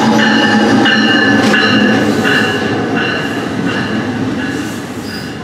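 NJ Transit electric locomotive and its double-deck Multilevel coaches rolling past close by, loudest as the locomotive goes by in the first couple of seconds and then easing as the coaches follow. High-pitched squeals come and go over the rumble of the train.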